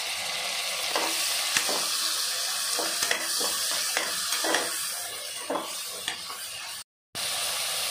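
Chopped tomatoes and onions sizzling in hot oil in an aluminium pressure-cooker pot, while a perforated steel ladle stirs them and scrapes and knocks against the pot again and again. The sound cuts out for a moment near the end.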